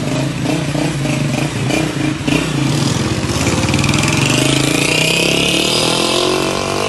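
Motorcycle engine idling close by, then revving with a rising pitch from about three seconds in as it pulls away.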